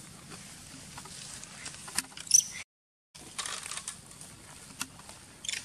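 Macaque giving a sharp, very high-pitched squeal about two seconds in, then a second shorter cry near the end, over light scuffling and rustling in dry leaves. The sound cuts out for half a second just after the first squeal.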